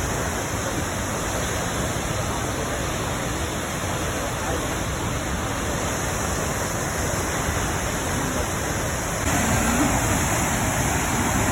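Krimml Waterfalls rushing: a steady wash of falling water, a little louder about nine seconds in.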